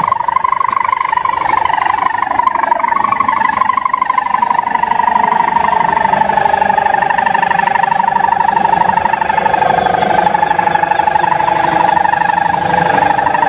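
Sendaren, the hummer strung on a traditional Javanese kite, droning loudly in the wind. It sounds as one buzzing tone that wavers a little in pitch, sagging slightly through the middle before rising again near the end.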